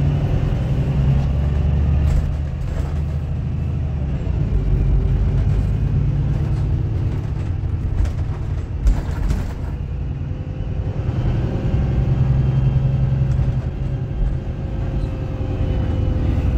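Cabin sound of a VDL Berkhof Ambassador city bus with a Voith automatic gearbox pulling away and driving: a steady low engine and drivetrain rumble. A faint whine rises and falls slowly in the second half, and there is one sharp knock about nine seconds in.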